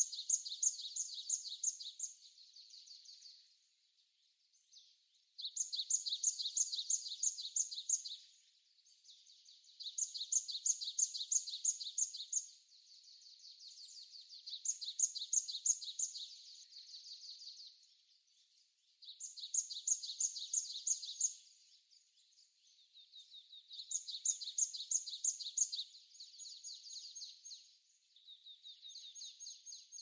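Great tit singing: bouts of rapid, high, two-pitched notes, each two to three seconds long, repeated every few seconds.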